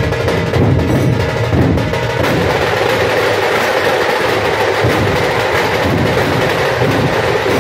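A dhol pathak ensemble: many large dhol barrel drums beaten together with sticks in a loud, dense rhythm, which turns into a more continuous, roll-like texture about two seconds in.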